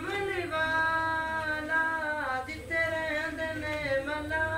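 A teenage boy singing a naat solo with no instruments, in long held notes that waver and slide between pitches.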